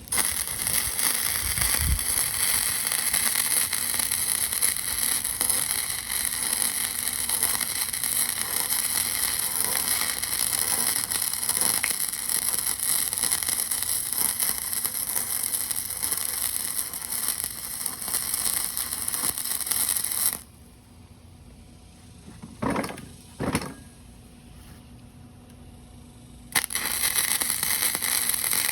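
Electric arc welding running steadily. The arc stops about two-thirds of the way in, there are two short sounds in the pause, and welding starts again near the end.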